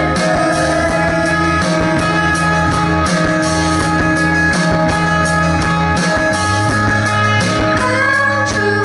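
Live rock band playing, with electric guitar over a low bass line and a steady beat of hits. The bass moves to a new note about six seconds in.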